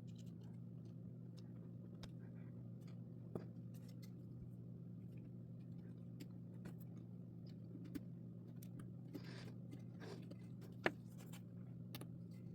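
Faint clicks and short scratches of a jumper wire being handled and pushed into a solderless breadboard, with a few sharper ticks, the loudest near the end, over a steady low hum.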